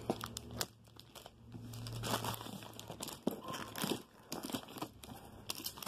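Thin plastic shrink-wrap crinkling and crackling as it is handled and pulled off a cardboard box, with irregular crackles and small clicks.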